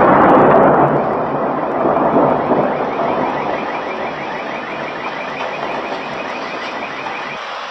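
Rolling thunder rumbling and slowly dying away after a strike. From about three seconds in, a car alarm chirps rapidly and faintly, about six chirps a second.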